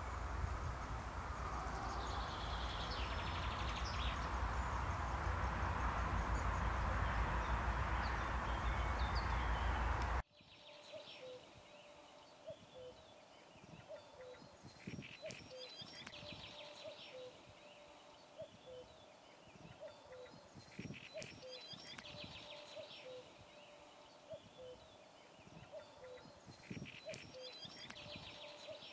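A honeybee swarm buzzing as a dense, steady hum, with a bird calling briefly over it. About ten seconds in, the hum cuts off abruptly and gives way to a quieter night chorus of animal calls: a short low note repeated about once a second, with bursts of rattling higher calls.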